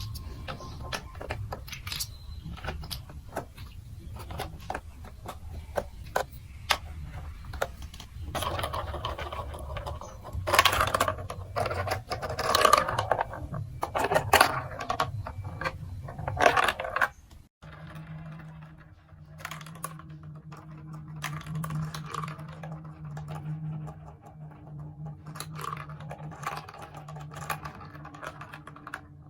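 Plastic marble run building-block pieces being handled, clattering and clicking together, with a denser, louder clatter of pieces in the middle. After an abrupt change just past the middle, a steady low hum sits under softer clicks.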